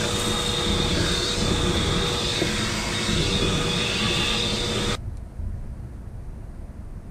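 Power drill running steadily, driving a screw, and stopping suddenly about five seconds in.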